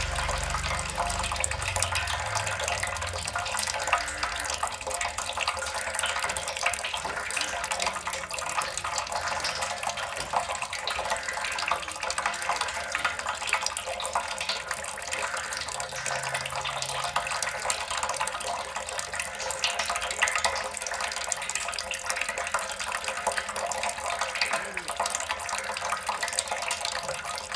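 Water drops splashing in a steady, dense patter of many small splashes, close to the sound of a running tap into a sink.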